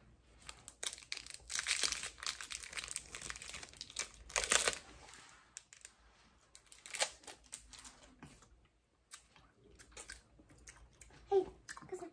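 Plastic candy wrappers crinkling and tearing as they are opened, in a dense run of crackling from about one to five seconds in, then a few sharper crackles.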